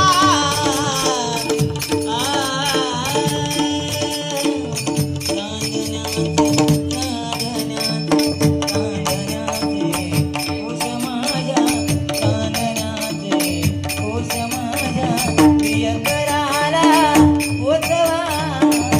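Marathi devotional bhajan music: a steady drone under rhythmic percussion, with a male voice singing a melismatic line in the first few seconds and again near the end.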